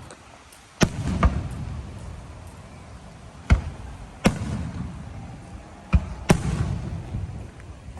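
Fireworks going off: about six sharp bangs at uneven intervals, some in quick pairs, each trailing off in a low rumble.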